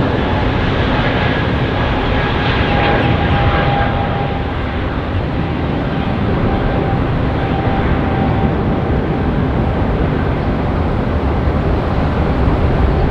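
Jet engines of an Airbus A320-family airliner at takeoff power as it lifts off and climbs out: a steady, loud jet noise with a thin whining tone through the middle.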